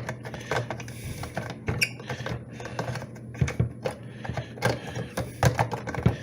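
Irregular plastic clicks, taps and light knocks from a new drip coffee maker being handled, its lid and parts moved about, over a steady low hum.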